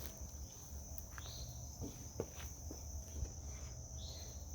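Faint steady cricket chirping in the background, with a few soft clicks.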